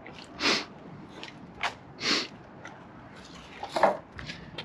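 Two short breathy hissing bursts, then a cluster of light knocks and rattles near the end as a step ladder with aluminium treads is grabbed and shifted.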